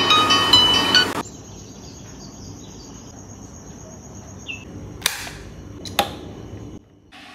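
A smartphone alarm tone, a quick run of bright electronic notes, rings for about a second and cuts off abruptly as the alarm is dismissed. Then a quieter stretch with a steady high-pitched whine and a single short chirp, followed by two sharp clicks about a second apart near the end.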